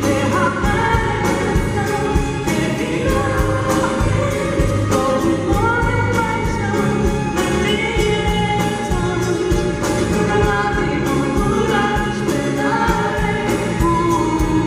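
Woman singing a song live into a microphone over band accompaniment with a steady beat.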